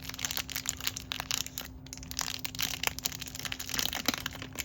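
Small plastic packaging bag crinkling and crackling in quick, irregular bursts as it is opened and handled, with a faint steady hum underneath.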